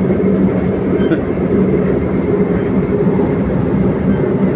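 Steady engine drone with tyre and wind noise inside the cab of a mobile crane cruising at highway speed, about 80 to 100 km/h.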